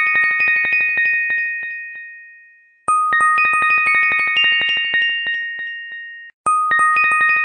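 Background music: a looping melody of quick, chime-like bell tones, each ringing out and fading. The phrase breaks off briefly and starts over twice, about three and a half seconds apart.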